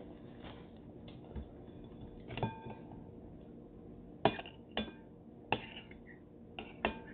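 A glass mixing bowl clinking as food is picked out of it by hand: about six sharp clinks, each ringing briefly, most of them between about four and seven seconds in.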